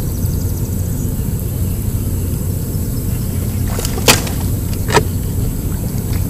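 A steady low drone and hiss on a bass boat, broken near the middle by two sharp knocks about a second apart.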